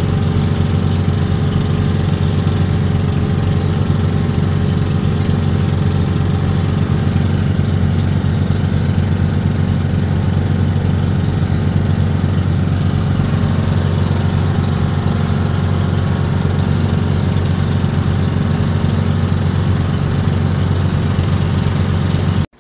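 Engine of a motorized outrigger boat (bangka) running steadily under way: a constant, even drone.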